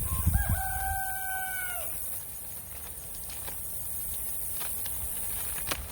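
Rooster crowing once: a short, flat crow of about a second and a half that drops off at the end.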